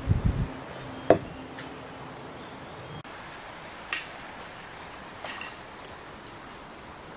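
A few sharp knocks and clicks over a steady background hiss: dull thumps at the very start, a loud click about a second in, and fainter clicks about four and five seconds in.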